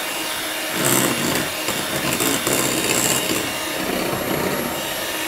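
Electric hand mixer running, its twin beaters working the first third of the flour into butter-and-egg cake batter in a glass bowl. The noise swells briefly about a second in and again around the middle.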